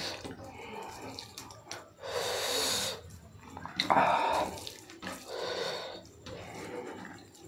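Wet squishing of a bare hand kneading cooked rice into pork curry gravy, in several short bursts.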